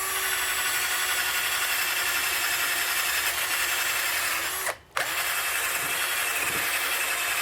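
Power drill spinning a wire wheel brush against the engine block, scrubbing its surface clean; a steady high whir that cuts out briefly about two-thirds of the way through and starts again.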